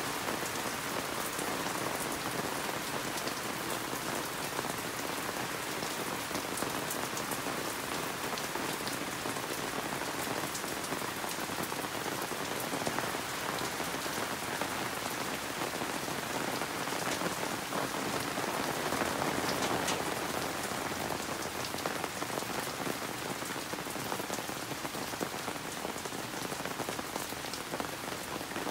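Steady rain falling, with individual drops ticking close by; it swells slightly about two-thirds of the way through.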